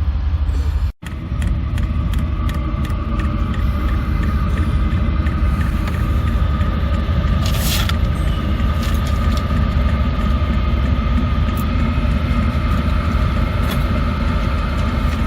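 Chinese diesel air heater running through its start-up, its fan giving a steady whine over the low, steady rumble of the van's idling engine. There is a brief cut about a second in.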